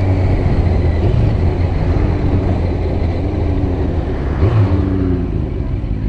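Motorcycle engine running steadily at low road speed in traffic, with wind and road noise. A brief rise and fall in engine pitch comes about four and a half seconds in.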